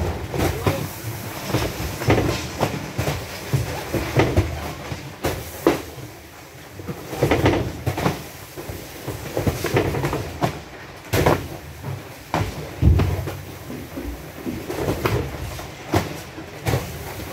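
Irregular knocks, thuds and clattering over a low rumble, several strikes every second or two.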